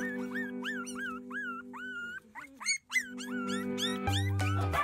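Four-week-old Japanese spitz puppies yipping and whining in short, high, rising-and-falling calls, several a second, over background music with held chords.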